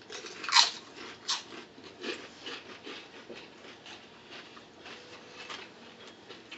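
Mouth and breath sounds of people eating a very spicy Paqui tortilla chip. A few sharp ones come in the first second and a half, the loudest about half a second in, then fainter ones follow.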